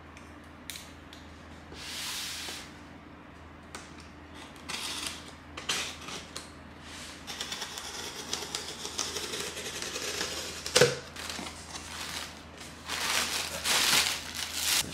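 A cardboard box being opened by hand: packing tape slit and peeled off, then the cardboard flaps pulled open, with scattered scraping and rustling. A sharp knock about eleven seconds in is the loudest sound.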